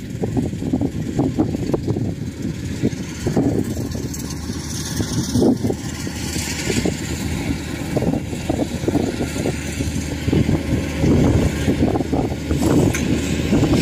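Rice combine harvester running in the field as it cuts and threshes, a continuous engine and machinery noise with uneven surges.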